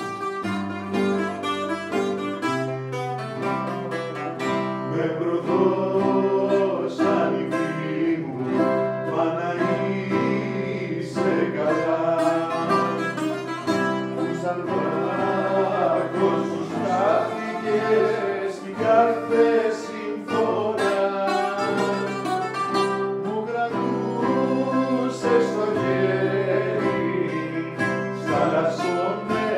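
Greek bouzouki and nylon-string classical guitar playing a Greek popular song together, with a man singing over them from about five seconds in.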